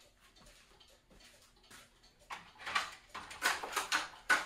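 Plastic clicks and scraping as the lamp-access cover on the underside of a 3M DLP projector is unscrewed and lifted off. The handling is faint at first, then a louder clatter starts about halfway in, with a sharp snap near the end.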